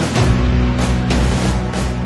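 Dramatic background music with sustained low notes and heavy percussive hits.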